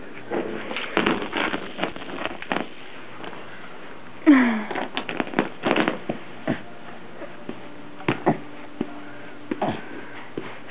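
A baby's plastic ring-and-ball toy tapping and clattering on a plastic chair mat, in runs of quick clicks that come and go. About four seconds in there is one short baby vocal sound, falling in pitch.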